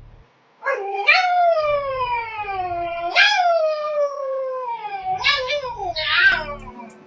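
A drawn-out howl in a dog-like voice, made as a funny sound: long wavering calls that each swoop up and then slide slowly down in pitch, two long ones followed by two shorter ones near the end.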